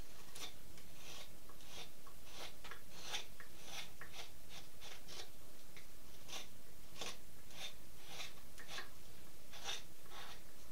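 Carving knife taking small shaving cuts in the pine bill of a duck decoy, a run of short, crisp scrapes about two or three a second.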